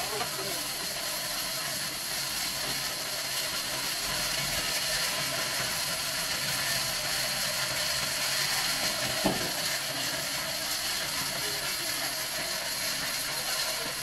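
Band sawmill running and sawing through a palm log: a steady, high hiss from the blade, with a single sharp click about nine seconds in.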